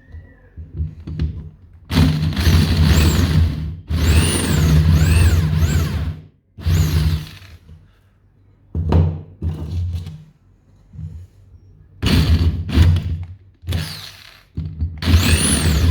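Power tool with a motor switched on and off in short bursts of a second or two, working wood, with quiet gaps between runs.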